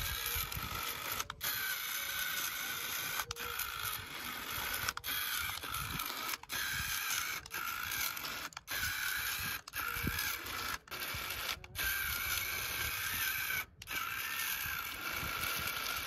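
Remote-control model tractor's small electric gear motor and gearbox whirring under load as it hauls a loaded trolley through loose sand, with short breaks in the drive every second or two.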